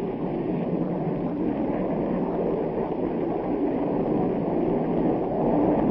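Steady, even rumble of jet aircraft engines, dull and without high treble.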